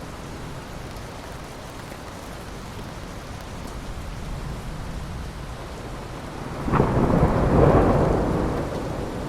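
Steady rain with a clap of thunder about two-thirds of the way through: a sudden crack, then a rumble that swells and fades over about two seconds.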